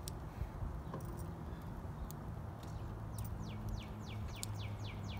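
A songbird singing a run of quick falling notes, several a second, starting about three seconds in, over a steady low outdoor hum, with a few faint clicks.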